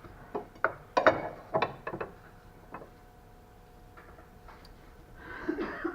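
Sharp clicks and knocks from a Citroën C4's front suspension being rocked by hand to check the ball joint for play, about six of them in the first three seconds, the loudest a little after a second in. Some slight noise comes from it, but the mechanic doesn't take it for the knock he is hunting.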